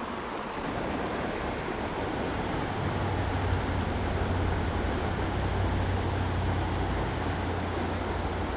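Creek water rushing steadily through a churning riffle, with a deep low rumble under it from about two seconds in.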